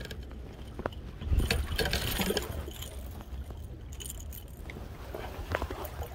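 Handling noise on a phone microphone with light metallic clinks and clicks, and a louder rumbling rush about a second and a half in.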